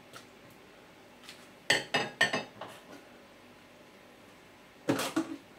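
A kitchen spatula clinking and knocking against a Thermomix's stainless-steel mixing bowl: a quick run of three or four knocks about two seconds in, and another knock near the end.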